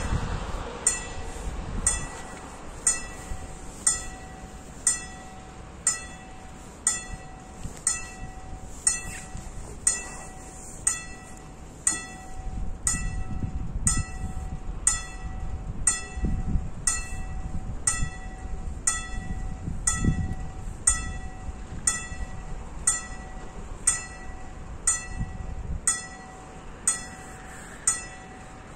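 Level crossing warning bell striking about once a second, each strike a short bright ring, warning that the crossing is closing for a train. A low rumble swells and fades in the middle.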